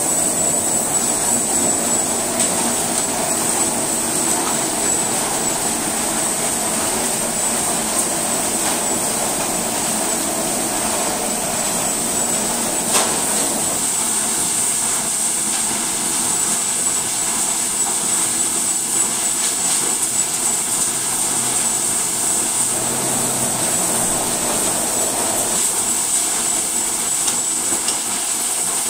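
Red snow crab processing machinery running: a conveyor and a large rotating drum give a steady, dense mechanical din with a constant high-pitched whine over it.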